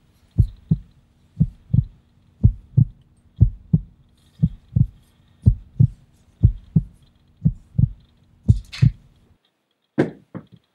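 Heartbeat sound effect: paired low thuds about once a second over a faint steady hum, stopping about nine seconds in. A few short sharp clicks follow near the end.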